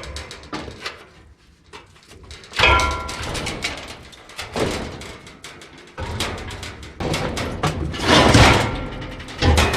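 Irregular knocks and thuds, with a few louder noisy scraping bursts, from hands-on work on a stripped RV frame.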